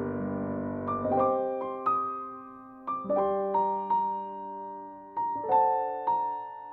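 Background piano music: a low chord fading out, then a slow, gentle melody of single struck notes and soft chords, each ringing and dying away.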